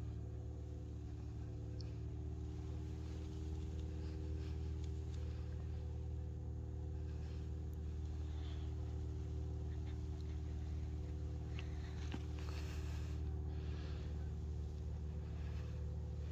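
Steady low rumble with a faint steady hum above it, and a couple of faint clicks a little past the middle.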